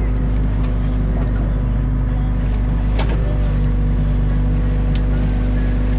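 Excavator's diesel engine running steadily at a constant pitch, heard from inside the cab, with a couple of short clicks as the boom moves.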